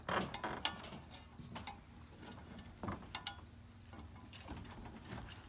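Hand-cranked ratchet winch (come-along) clicking irregularly as its lever is worked to draw in the tow strap, with a steady insect chirring behind it.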